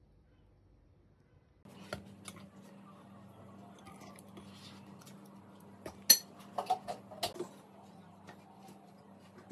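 An electric hand mixer with a wire whisk attachment switches on about two seconds in and runs with a low steady hum, mixing an egg-white and powdered-sugar glaze. The whisk clinks and taps against the glass bowl now and then, with a quick cluster of sharp clinks a little after the middle.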